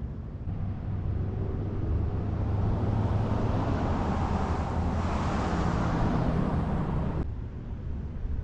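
A car passing on the road: its tyre and engine noise swells to a peak past the middle over a steady low rumble, and the hiss cuts off suddenly near the end.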